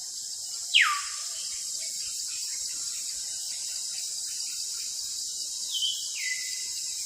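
Nature ambience: a steady high insect drone, with a loud whistled call sliding steeply down about a second in and two shorter falling whistles near the end.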